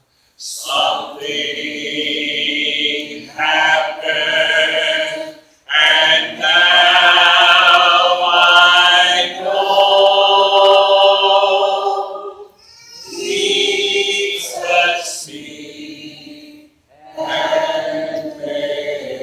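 A man singing slowly and unaccompanied, in long held phrases with vibrato, breaking off between phrases about every four to six seconds.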